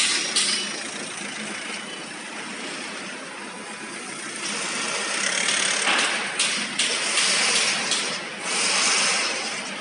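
Construction-site din: a steady mechanical noise, broken about six seconds in by a string of short, sharp hissing bursts and then a longer one near the end.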